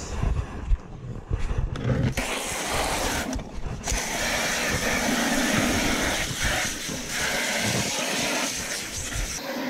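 Steady rush of running water from a garden hose, starting about two seconds in. Before it come a few knocks and rustles of the plastic cooler being handled.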